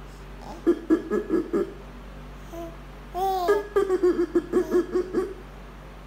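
Baby vocalizing and giggling: a short run of quick babbling sounds about a second in, a single falling glide at about three seconds, then a fast string of giggling pulses lasting about a second and a half.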